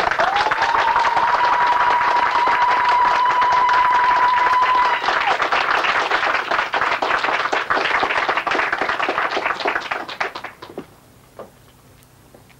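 The ritual ololyge cry answering the chorus's song: one high cry that rises at its start and is held for about five seconds, over a dense clatter that fades out about ten seconds in.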